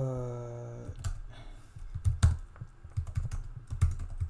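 Computer keyboard typing: irregular single keystrokes as a terminal command is typed, after a drawn-out vocal hesitation sound ("euh") in the first second.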